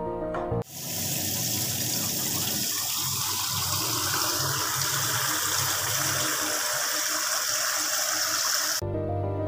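A steady stream of water pouring into a stainless steel bowl, its note rising a little a few seconds in. Background music plays briefly at the start and comes back near the end.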